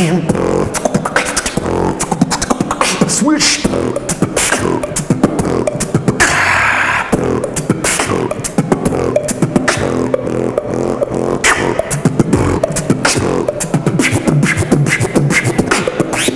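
Solo human beatboxing: fast, dense mouth percussion of clicks and pops, woven with low pitched, hummed bass tones, and a brief hissing stretch about six seconds in.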